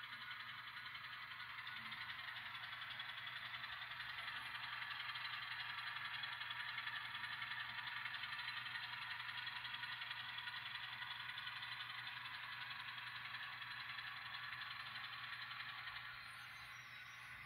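An N scale model train running on the layout track: a steady whir of the locomotive's motor and rolling wheels, under a low steady hum, dropping off about a second before the end.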